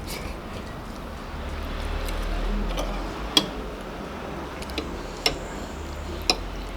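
Eating sounds: scattered sharp clicks of cutlery against a dish, three louder than the rest, over a low steady hum.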